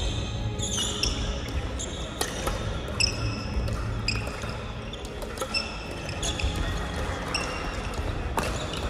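Sports-hall sounds during crossminton play: athletic shoes squeaking on the gym floor several times a second, with a few sharp racket hits on the speeder, echoing in the large hall.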